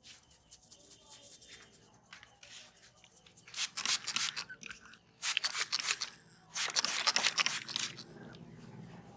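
Head massage: hands rubbing and working briskly through hair and over the scalp, making a dense crackling rustle. It comes in three bursts of about a second each, the first about three and a half seconds in.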